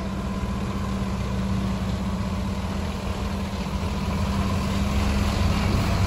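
Large intercity coach's diesel engine running steadily at low revs, a deep even hum that grows slightly louder near the end as it comes close.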